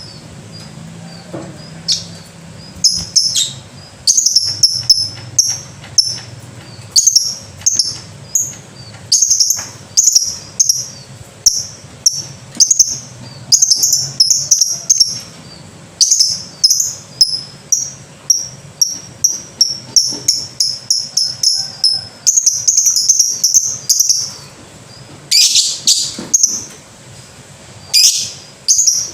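Lovebird calling: bursts of short, high-pitched chirps repeated rapidly, several a second, with brief pauses between bursts, and a few harsher, lower-reaching calls near the end.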